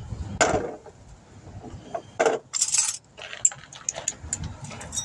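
Steel hand tools (ratchet, extension and socket) clinking and knocking together as they are handled and fitted, a few irregular metallic clinks.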